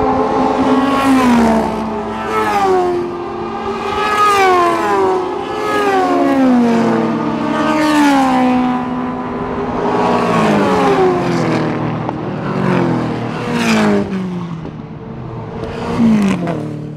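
Historic race cars passing on the circuit one after another, each engine note dropping in pitch as it goes by. The loudest pass comes near the end.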